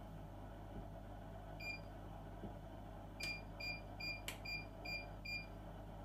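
Induction hob's touch-control keys beeping as the heat setting is tapped up, each short beep confirming a key press: a single beep, then a run of six quick beeps at about two or three a second, with one sharp click among them.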